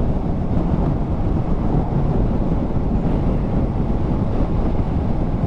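Steady wind rush on a motorcycle rider's microphone while riding at road speed, with low rumble underneath.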